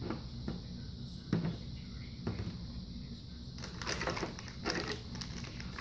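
A few light knocks of plastic toy pieces and Play-Doh tubs handled on a plastic table. From about three and a half seconds in, a thin plastic bag of toy parts crinkles as it is handled, over a low steady hum.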